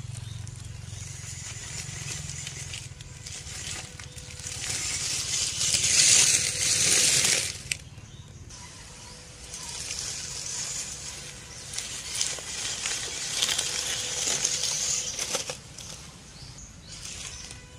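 Small MN90 RC off-road truck driving over dry forest leaf litter, its tyres crunching and rustling the leaves. The crunching is loudest about six seconds in as it passes close, cuts off suddenly, and returns more faintly later.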